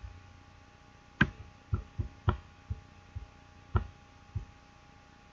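A series of about nine sharp, irregularly spaced clicks from a computer mouse and keyboard, over a faint steady hum.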